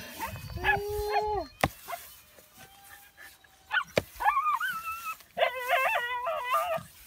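Dogs whining and yelping in long pitched calls, the last one wavering in pitch, while a hoe strikes the soil twice with sharp knocks.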